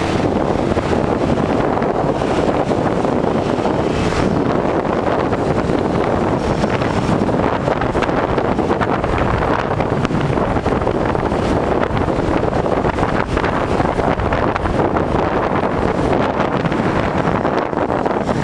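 Wind rushing over the microphone on a moving motorcycle, mixed with the motorcycle's engine and road noise.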